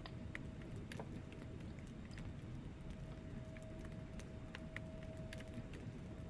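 Wood fire burning in a fireplace: a low steady rumble of flame with scattered sharp crackles and pops from the logs, several in each second.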